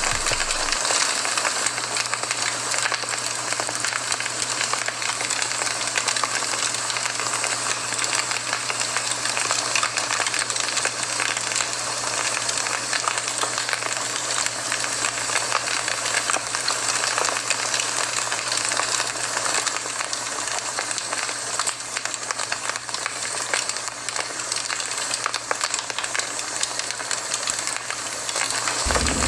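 Campfire burning with a steady hiss and dense, fine crackling, over a faint steady low hum.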